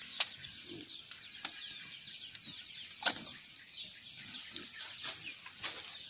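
Small birds chirping steadily in the background, many quick high falling notes, with a few sharp cracks from the wood fire under the spit-roasting pig; the loudest crack comes about three seconds in.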